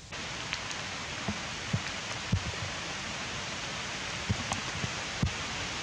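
A steady, even hiss of outdoor background noise with a few scattered light ticks, starting abruptly right at the beginning.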